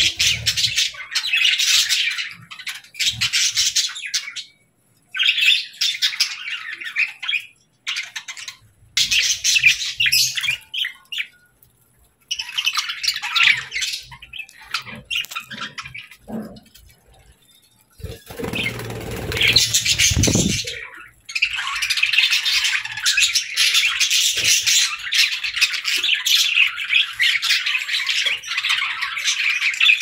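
A flock of budgerigars chattering and chirping in stretches broken by a few brief silences, with a short rushing noise about two-thirds of the way through, then steady chatter to the end.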